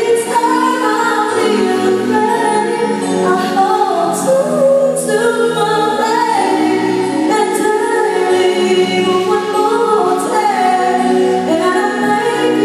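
A woman singing a slow song through a microphone and PA, backed by a live band of guitars, keyboard and drums.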